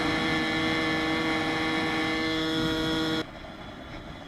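Puch Magnum moped's single-cylinder two-stroke ZA50 engine running at a steady high pitch while cruising, with wind and road noise. About three seconds in, it cuts off suddenly to a much quieter background.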